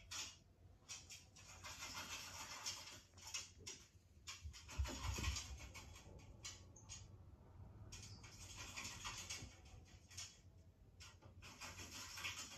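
Intermittent scratchy rustling in short patches, with a dull thump about five seconds in.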